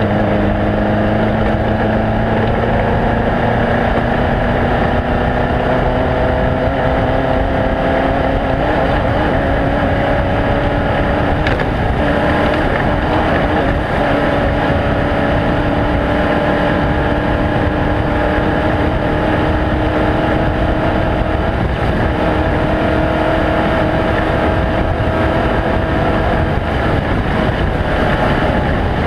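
A loud, steady engine-like drone whose pitch climbs slowly, with no breaks.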